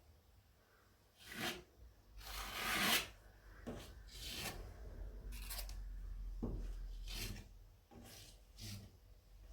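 Hand sanding dried filler over mesh tape on a ceiling crack: a series of irregular abrasive strokes, the longest and loudest about two to three seconds in.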